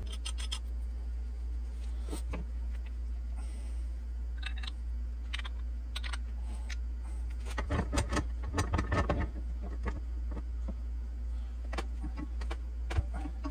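Small metal clicks and rattles as a Mauser rifle bolt is handled, fitted into a steel bolt-bending fixture and clamped in a bench vise, with a denser burst of clinking and clattering about eight seconds in. A steady low hum runs underneath.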